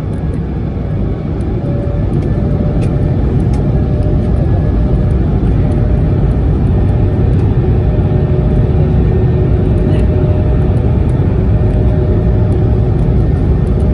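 Airbus A220-300's Pratt & Whitney PW1500G geared turbofans heard inside the cabin at takeoff: a deep, steady rumble that builds over the first couple of seconds and then holds, with faint steady engine tones above it.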